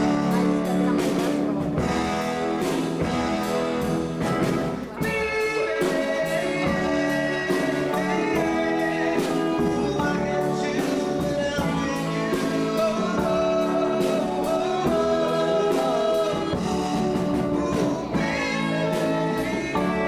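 Music with a singing voice and guitar, carried along by a steady beat.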